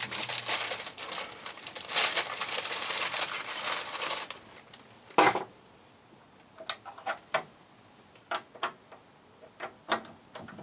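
Rustling and metallic clinking for about four seconds, then one sharp click and a run of small light clicks and clinks: a small key being got out and worked in the lock of a metal equipment cabinet's door.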